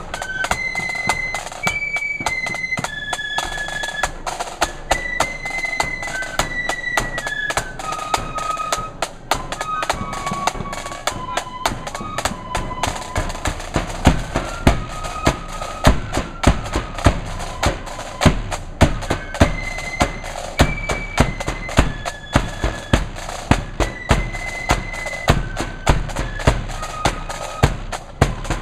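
Marching flute band playing a tune: flutes carry the melody over rattling snare drums, and from about halfway a bass drum beats heavily about twice a second.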